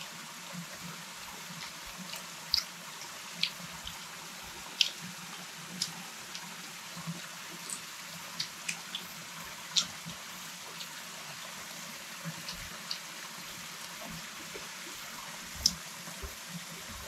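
Cooking fire crackling: a steady hiss with about a dozen sharp, irregular pops spread through.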